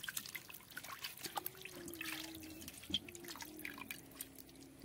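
Water dripping and splashing in an iron kadai as raw chicken pieces are squeezed and rinsed by hand, in many small irregular drips and splashes.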